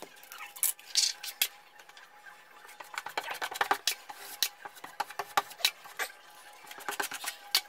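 Metal drywall taping knife scraping and clinking against a metal mud pan as joint compound is loaded and wiped off the blade: an irregular run of short scrapes and sharp clicks.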